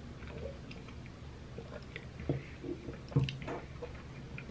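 Quiet sipping and swallowing from a drink can and a small plastic bottle, with a few soft mouth clicks and light knocks.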